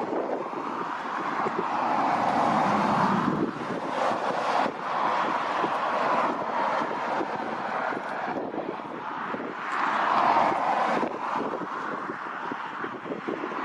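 Jet engine noise from a Boeing 777 freighter's GE90 engines, mixed with wind buffeting the microphone. The rushing sound swells a couple of seconds in and again about ten seconds in.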